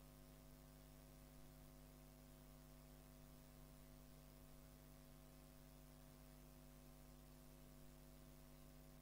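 Near silence: a faint, steady electrical hum with background hiss.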